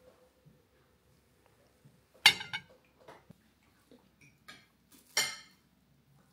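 Tableware clinking at a meal: a few scattered light taps and two sharp clinks, one a little over two seconds in and a louder-sounding one about five seconds in, each ringing briefly.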